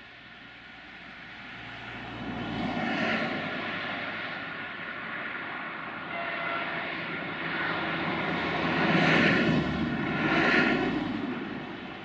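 Bombardier Talent 643 diesel multiple unit running under power as it approaches, its engine drone growing louder, with swells about three seconds in and twice near the end.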